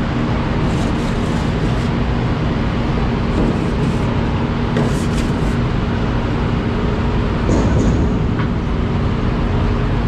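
Potato harvest conveyor belt and spiral cleaning rollers running, a loud, steady mechanical din with a low, even hum and a few light clicks. It carries the last potatoes and dirt through the machine.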